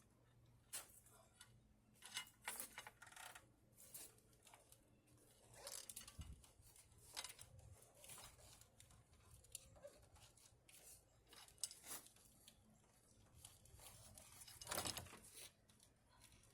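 Faint, irregular clicks and light knocks with soft rustling, the small sounds of things being handled.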